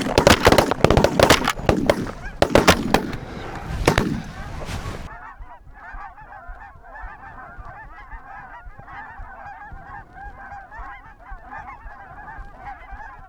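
A rapid volley of shotgun shots from several hunters firing over the first five seconds. Then a flock of geese honking continuously.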